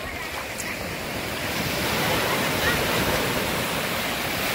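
Sea surf breaking and washing up the sand at the water's edge: a steady rushing hiss that swells over the first two seconds and then holds.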